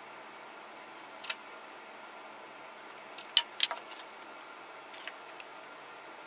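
A few light clinks and knocks as a glass beaker and a plastic funnel are set down on a lab bench. The loudest come in a quick cluster about three and a half seconds in, over steady low room hiss.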